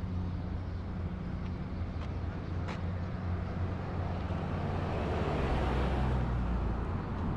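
Road traffic: engines running steadily, with one vehicle passing more loudly about five to six seconds in.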